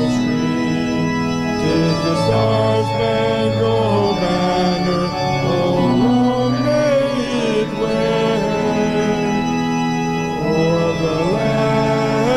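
Organ music: sustained chords held and changing every second or two.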